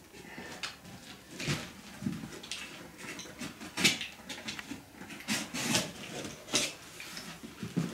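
Utility knife cutting through the tape and cardboard of a large shipping box, with irregular scraping and cardboard rustling and a few sharper strokes.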